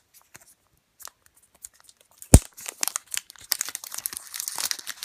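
Plastic packaging being crinkled and torn open to free a power adapter plug, with one sharp knock about two and a half seconds in, the loudest thing, and a dense stretch of crinkling near the end.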